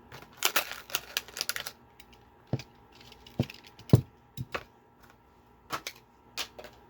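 Clicks and knocks of a small diecast model car being handled. A quick flurry of rattling clicks comes first, then single sharp taps and knocks every half second to a second.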